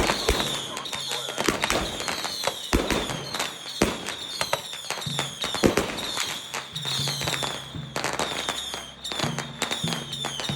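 Fireworks and firecrackers going off in rapid, dense crackling bangs, with many short whistles falling in pitch over and over.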